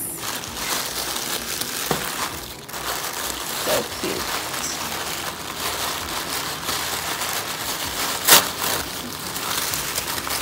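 Tissue paper rustling and crinkling as hands dig through it, with one short, sharper crackle about eight seconds in.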